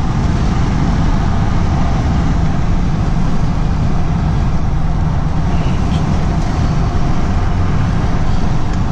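Steady low road, tyre and engine rumble inside the cab of a 2019 Chevrolet heavy-duty pickup with the Duramax L5P 6.6-litre V8 turbodiesel, driving at about 50 mph.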